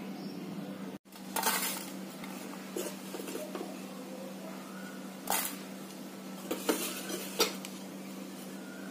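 Metal spatula scraping and clinking against a metal cooking pan and an aluminium cake tin as crumbly roasted gram-flour mixture is scooped into the tin. There are several short scrapes and clinks, the loudest about a second and a half in and again after about five seconds, over a steady low hum.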